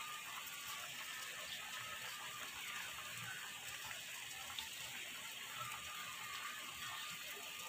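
Water at a rolling boil bubbling steadily in an aluminium pot, with sweet potato leaves blanching in it.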